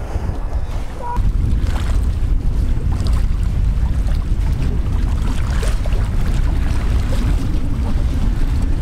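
Wind buffeting the microphone: a heavy, steady low rumble, with faint scattered ticks above it.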